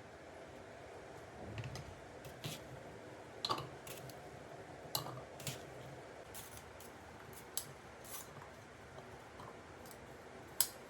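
Sparse light clicks and taps of a spoon against a food chopper's bowl and containers while chopped vegetables, boiled chickpeas and soaked soya chunks are moved between them.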